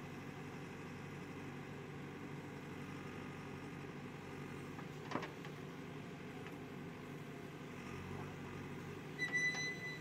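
JCB 3DX backhoe loader's diesel engine running steadily while the backhoe digs and lifts a bucket of soil, with a single knock about five seconds in and a short high beep near the end.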